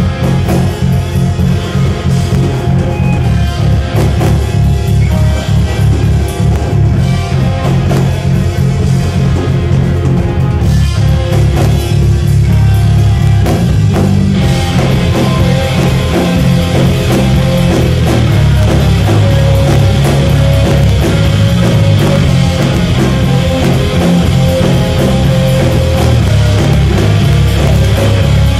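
Live heavy rock band playing loudly: electric guitars over a pounding drum kit. About halfway through, the music shifts into a fuller, more sustained section.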